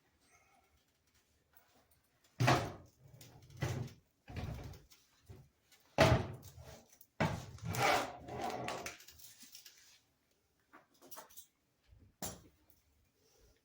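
Irregular handling noises: short bouts of rustling and scraping with a few knocks, the loudest about two and a half and six seconds in, a longer stretch from about seven to nine seconds, and a last one near twelve seconds.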